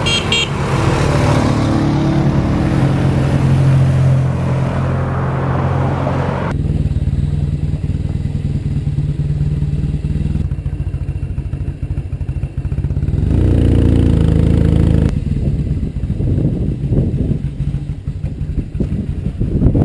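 Motorcycle engine running, its note holding fairly steady with a few abrupt shifts, and louder for a couple of seconds around the middle.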